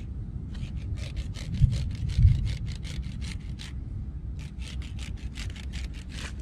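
Thick Bio Soft nylon monofilament fishing line sawed back and forth across a rough concrete edge: a quick, rhythmic scraping of about four to five strokes a second, with a short pause a little past halfway. This is an abrasion test of the line. Two dull thumps sound in the first half over a low rumble.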